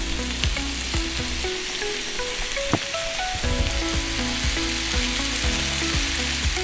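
Food sizzling hard in a hot frying pan, a steady crackling hiss that starts and cuts off abruptly, under background music with a melody.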